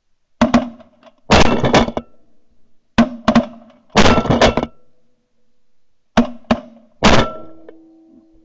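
Three groups of loud, sharp bangs, each a pair of single hits followed by a rapid cluster, with short pitched ringing after some of them.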